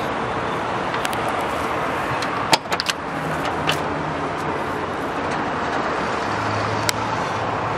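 Cab door of a GAZ-3309 truck being opened: a few sharp latch clicks about two and a half to three seconds in and one more click near the end, over a steady hiss of background noise.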